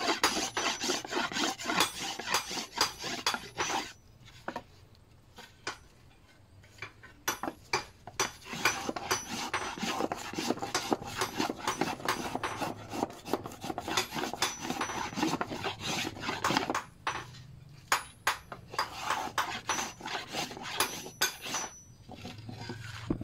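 Repeated rasping strokes of a small hand plane shaving curls off the edge of a wooden sword blank. The strokes come in runs and stop twice for a few seconds.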